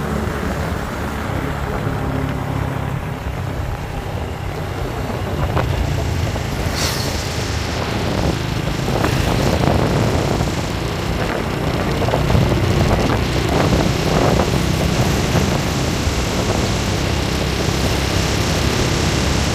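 Motorcycle riding along a paved road: steady engine and tyre noise with wind rushing over the microphone.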